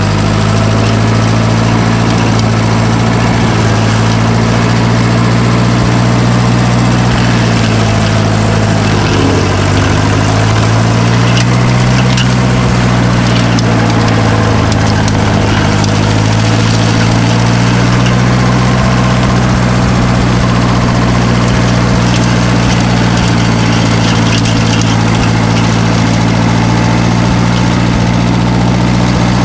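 A heavy machine's engine runs steadily and loudly. About eight seconds in its pitch sags for a couple of seconds, as if pulled down under load, then climbs back and holds.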